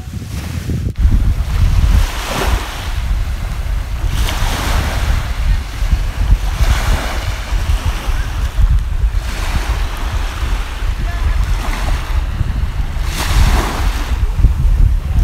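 Small waves from a calm bay washing onto a sandy beach, swelling and fading every few seconds, under heavy wind rumble on the microphone.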